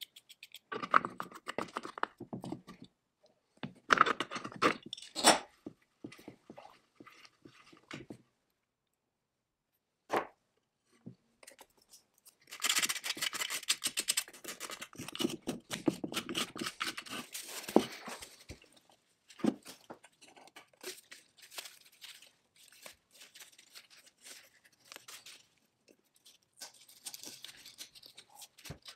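Hand work on chainsaw parts: short bursts of scraping and rubbing with scattered sharp clicks and knocks, separated by brief silent gaps, with a longer stretch of steady scraping in the middle.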